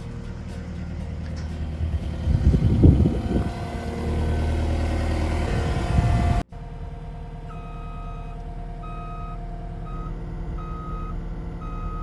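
Engine of a construction lift running, growing louder for a moment a few seconds in. After an abrupt break about halfway, the lift's warning alarm beeps repeatedly, about twice a second, over the engine.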